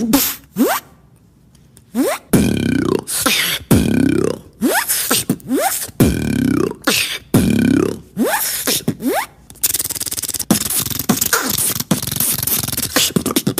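A beatboxer's mouth-made sound effects: repeated gliding sweeps that fall and rise in pitch, punctuated by sharp clicks and coming about every second and a bit. About ten seconds in they give way to a fast unbroken run of clicks and hiss.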